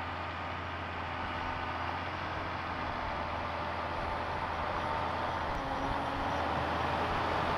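John Deere 7430 tractor's six-cylinder diesel engine running steadily under load while pulling a Pöttinger Terrasem 4C seed drill during sowing, growing slowly louder as it approaches.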